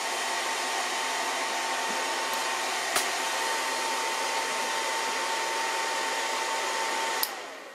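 NF-9000 variable frequency drive's cooling fan running with a steady rush and a thin whine, with a small click about three seconds in. Near the end a click comes and the fan and whine cut off and die away: the drive has tripped on an overheat fault after its temperature-sensor connector was shorted.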